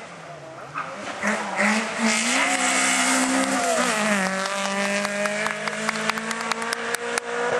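Rally car engine approaching and driving past at speed. The revs rise and dip with gear changes, then are held high and steady. A run of sharp clicks comes in the last couple of seconds.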